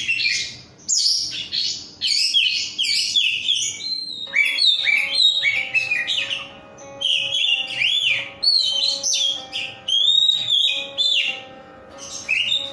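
Oriental magpie-robin (kacer) singing continuously in quick, varied whistled and chirping phrases with short pauses. Faint steady background tones, like music, join in about four seconds in.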